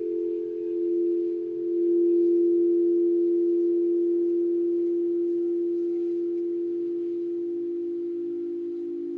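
Crystal singing bowl sounding a sustained, pure ringing tone. It swells twice near the start, then slowly fades.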